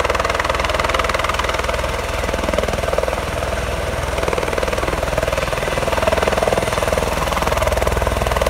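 Air ambulance helicopter hovering low and descending to land, its rotor beating and turbine running steadily and loudly.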